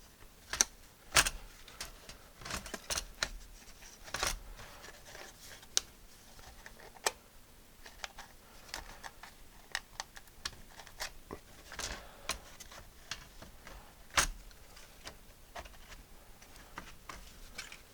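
Irregular clicks and knocks of plastic parts from an Atari 65XE home computer being handled: its keyboard and case pieces set down and fitted together, with a few sharper knocks about a second in, about four seconds in and near fourteen seconds.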